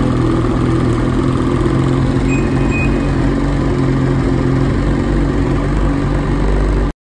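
Ski-Doo 850 E-TEC two-stroke twin snowmobile engine idling steadily just after starting, running to power the newly installed LED lights. The sound cuts off suddenly near the end.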